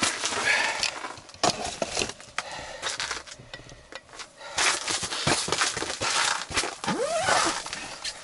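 Rustling and crinkling of heavy winter clothing and gear being handled, with irregular clicks and knocks and a quieter spell midway.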